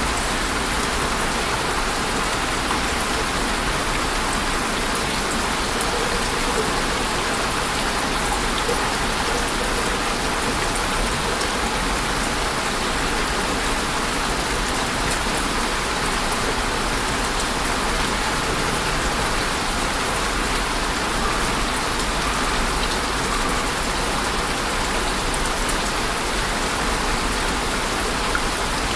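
Steady rain falling, an even dense hiss of drops on a surface with faint scattered patters, unchanging in level throughout.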